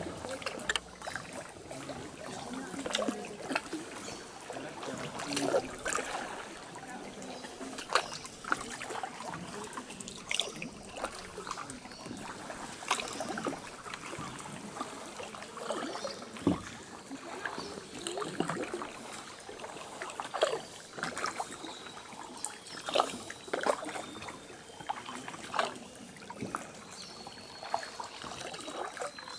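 Kayak paddle dipping into calm water, with small irregular splashes and drips from the blade.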